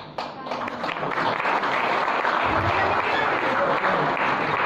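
Audience applauding: many hands clapping, building over the first second and then holding steady.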